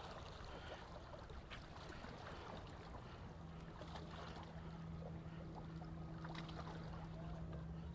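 Faint, steady low hum of a motorboat engine, coming in about three seconds in, over a low rumble and scattered small clicks.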